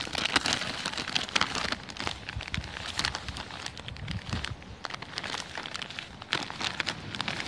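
Plastic bags and food packets crinkling and rustling as they are handled, in quick, irregular crackles.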